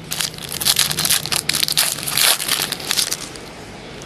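A stack of trading cards being slid and flipped through by hand close to the microphone: a dense, crackly rustle that stops about three seconds in.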